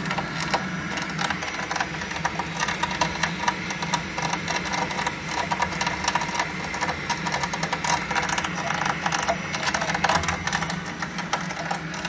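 Buderus gas boiler running: a steady low hum with fast, irregular clicking and crackling over it.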